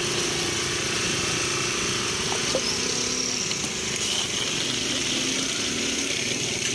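A motor running steadily with a constant low hum, over general street noise.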